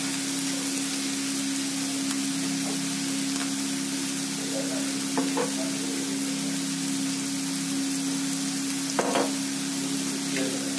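Chopped vegetables and scrambled egg sizzling in oil in a pan, a steady hiss over a steady low hum. A slotted steel spatula scrapes or taps the pan a few times, most clearly about five and nine seconds in.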